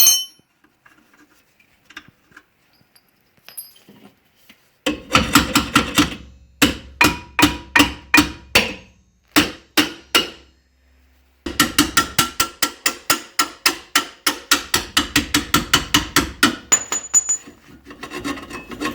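Hammer striking metal in two runs of sharp, ringing blows, the second run longer and faster at about four or five blows a second, as a seized suspension bolt on a 1982 Mazda RX-7 is worked loose.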